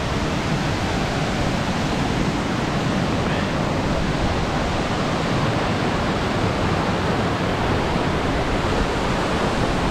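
Steady rushing roar of a large waterfall, Virginia Falls, plunging about 80 feet, heard close to the falls.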